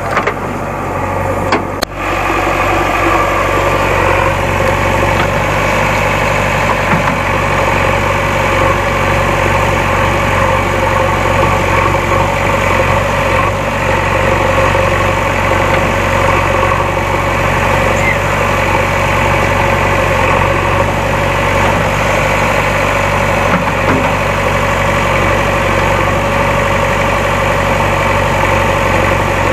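JCB backhoe loader's diesel engine running steadily, with a short dip in level about two seconds in.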